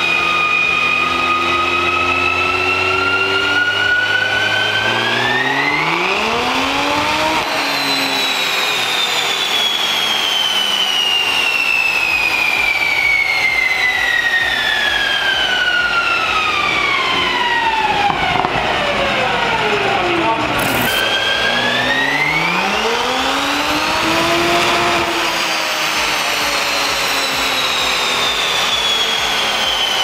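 Toyota GR Supra's turbocharged engine with a turbo-back exhaust, running on a chassis dyno together with the rollers. It revs up quickly about six seconds in and then winds down slowly over some twelve seconds, then revs up again a little past twenty seconds in and winds down once more.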